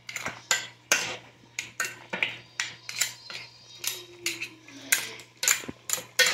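Long metal spoon stirring chunks of crab and potato in a metal cooking pot. It clinks and scrapes against the pot's sides and bottom in irregular sharp knocks, two or three a second.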